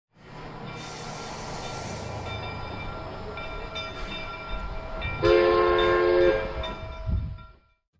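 Steam locomotive running with a steady rumble. About five seconds in, its chime whistle blows a chord for about a second. The sound fades out just before the end.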